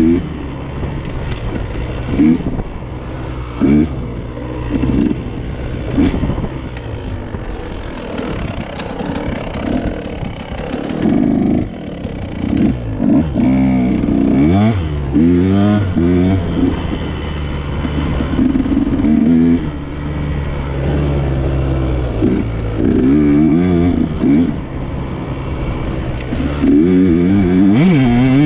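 Dirt bike engine heard on board while riding a trail, revved up and down over and over, its pitch repeatedly climbing and dropping, with short sharp rev bursts in the first few seconds.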